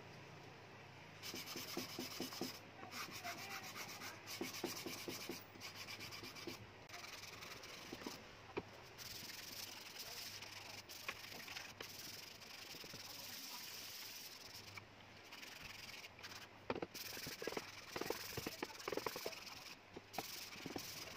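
Small wooden blocks rubbed and scraped by hand against a wooden box, in short back-and-forth strokes with occasional light knocks of wood on wood.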